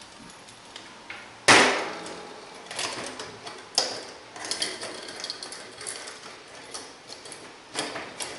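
Metal camp cookware being handled on a steel table: a small pot and its lid knocking and clinking, with one loud knock about a second and a half in, a sharp clink near four seconds, then scattered lighter taps.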